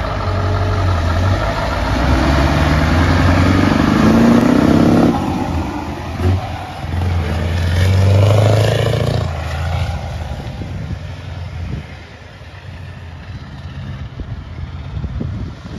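Scania R164 480's 16-litre V8 diesel pulling away under load, its note climbing, dropping sharply at a gear change about five seconds in, and climbing again. It then fades as the truck drives off.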